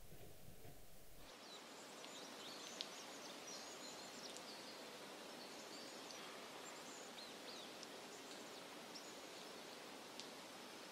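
Faint outdoor ambience: a steady hiss with scattered small bird chirps, after a brief low room hum in the first second.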